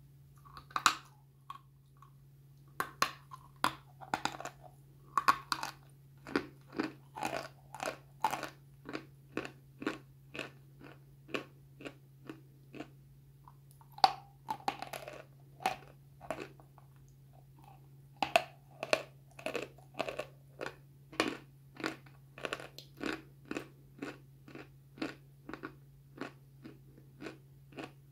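Biting into and chewing pieces of dry white chalk close to the microphone: sharp crunching bites followed by runs of chewing crunches, about one to two a second, over a faint steady low hum.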